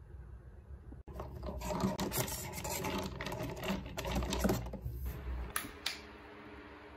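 A plastic straw stirring an iced coffee in a lidded plastic cup: scraping and rubbing against the lid and the drink for about four seconds, then two sharp clicks near the end.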